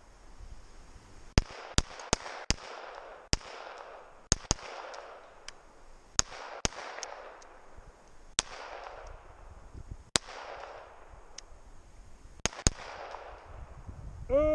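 Handgun shots from the firing line: about fifteen sharp cracks at irregular intervals, some in quick pairs, each trailing off in a long echo.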